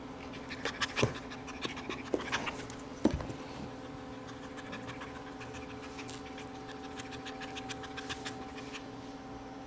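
A dog panting close to the microphone in a quick, even rhythm, with a couple of sharp knocks in the first few seconds. A steady low hum runs underneath.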